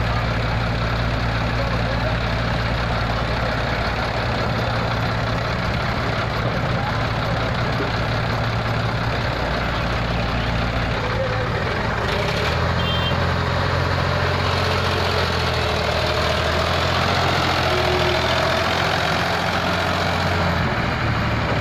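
Diesel engines running steadily: a Sonalika DI 50 RX tractor idling close by while an excavator works beside it. About halfway through the low engine note changes pitch.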